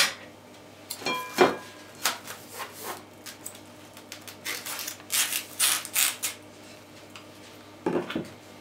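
Plastic cling film being pulled from its roll and stretched over a bowl, crinkling and rustling in several short, irregular bursts.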